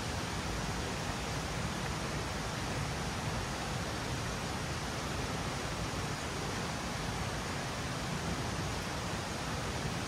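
Steady rushing of a mountain river, an even noise with no breaks.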